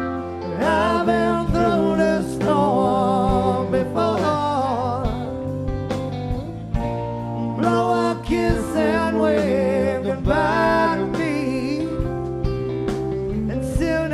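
Live rock band playing an instrumental break of the song, with a lead line that bends and wavers over bass, drums and keyboards.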